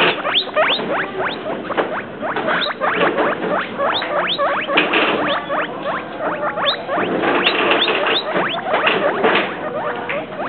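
Guinea pigs squeaking over and over: many short squeaks that fall in pitch, several a second.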